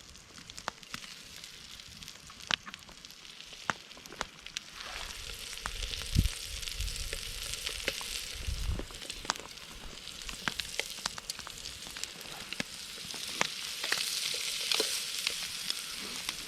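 Sausage frying in a pan over a wood fire: a steady sizzle with many sharp pops. The sizzle grows louder about five seconds in, and a couple of low knocks come around six and eight seconds.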